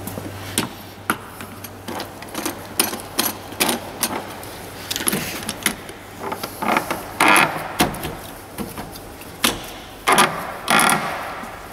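Metal clicks, knocks and ratcheting of an alignment head's wheel clamp being fitted onto a truck wheel and cranked tight, coming in irregular clusters.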